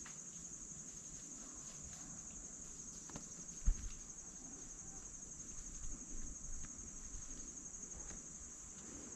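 A steady, high-pitched insect trill, rapidly pulsing and unbroken throughout. A single dull low thump sounds a little past the middle, with faint rustling a couple of seconds later.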